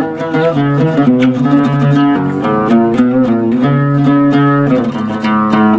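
An oud played with a plectrum: runs of quickly plucked notes alternating with long held notes.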